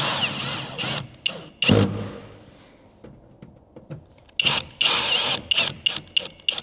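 Cordless drill/driver running in bursts as it drives a screw into the door panel: a longer run at the start, another about four and a half seconds in, then several quick trigger pulses near the end, with a low thump between the first two runs.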